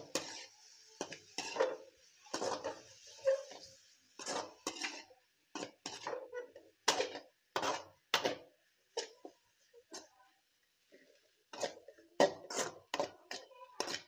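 Perforated metal ladle scraping and tossing a vegetable-and-chicken stir-fry around a metal kadai, in quick irregular strokes of about one or two a second with a short lull about two-thirds of the way through. A faint hiss runs under the first few seconds.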